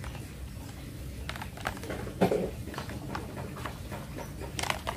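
Plastic clicks and knocks from a toy rifle being handled as a scope is fitted onto it: several short sharp taps, the loudest a little after two seconds in.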